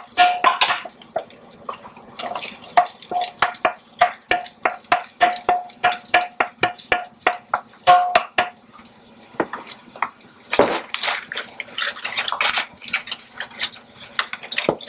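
Wooden spoon knocking and scraping against a plastic container as chopped onions are shaken off into the cooking pot: a quick run of knocks, about three a second, many with a slight ring, lasting about eight seconds. After that comes a few seconds of rustling hiss.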